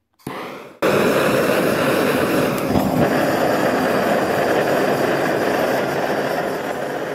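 Two hand-held gas torches firing into a small firebrick forge: a loud, steady roar of burning gas that starts abruptly about a second in, after a short burst of hiss. The forge is heating up for heat treating a knife blade.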